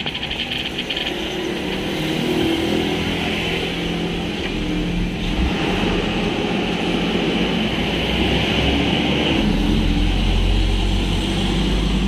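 Traffic on a busy road passing close by, cars and motorcycles, with a low engine rumble growing louder about two-thirds of the way through.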